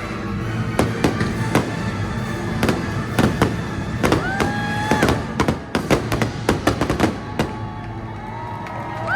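Fireworks bursting one after another over background music, building to a rapid flurry of bangs that stops about two-thirds of the way through. A short held tone sounds about four seconds in.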